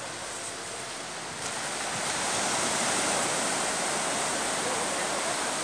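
Steady wash of sea surf breaking on a wide sandy beach, growing a little louder about one and a half seconds in.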